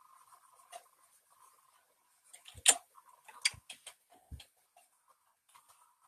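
Clunky clicks and knocks from working at a computer with a drawing stylus, tablet or mouse: a quick cluster of sharp taps from about two and a half to four and a half seconds in, the loudest near its start.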